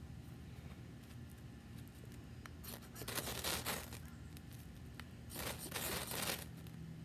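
Knife spine scraped hard down a ferrocerium rod twice, each stroke a harsh hissing scrape lasting about a second, the second one about two seconds after the first. It is striking sparks into a pile of feather-stick shavings to start a fire.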